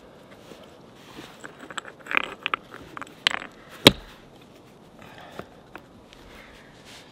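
Hands scraping, crumbling and packing loose dry soil around small stones, in short irregular scrapes and rustles, with one sharp knock just before four seconds in.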